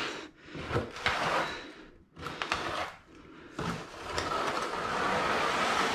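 Steel notched trowel scraping and combing epoxy across a shower pan in three strokes, the last one long and steady from a little over halfway through.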